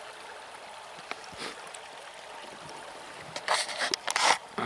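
A river running steadily, with a short run of noisy splashes about three and a half seconds in.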